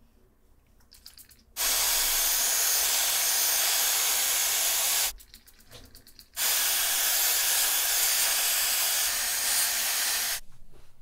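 Hair dryer with a concentrator nozzle blowing hair dry at the roots: a steady rushing noise that starts about one and a half seconds in, stops briefly around five seconds, then runs again for about four seconds and cuts off near the end.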